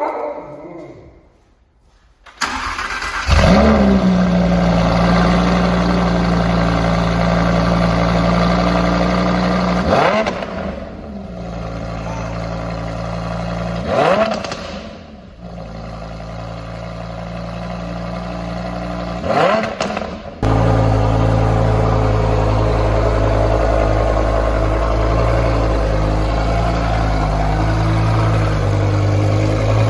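Lamborghini Huracán STO's V10 starting through a freshly fitted aftermarket exhaust, flaring up and settling to a steady idle. It is blipped in three short revs, and later the idle changes to a deeper, louder note.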